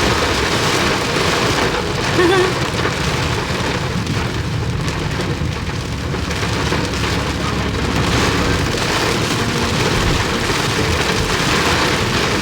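Steady rain and strong wind: an even, loud hiss with a low rumble beneath it.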